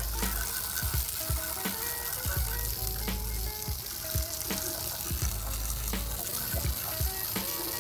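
Foaming degreaser fizzing and crackling on an oil-caked engine oil pan, with small scattered pops as the foam bubbles break. Background music plays underneath.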